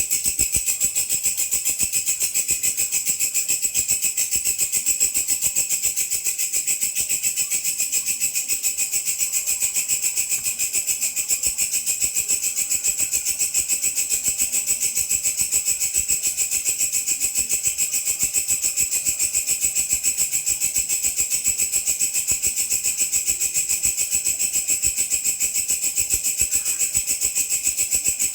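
A belalang (singing grasshopper) stridulating: a steady, very fast, high-pitched trill that runs on without a break.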